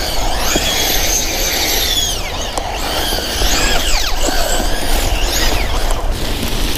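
Electric whine of a VKAR SCTX10 V2 RC truck's 3650 brushless motor, rising and falling in pitch several times as the throttle is worked while the truck churns through snow. A steady hiss and a low rumble run underneath.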